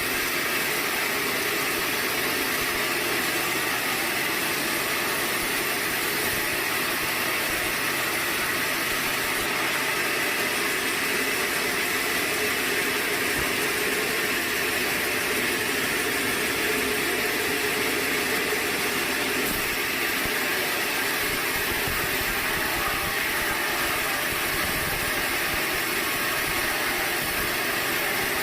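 Sawmill machinery running with a steady, unchanging mechanical noise.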